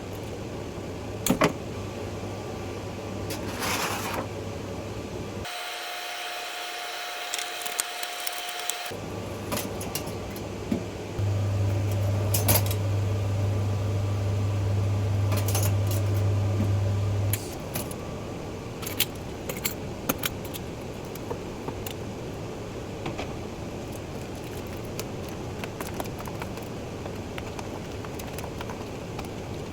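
Loose plastic keyboard keycaps clicking and rattling against each other, over a steady low hum that grows louder for several seconds in the middle.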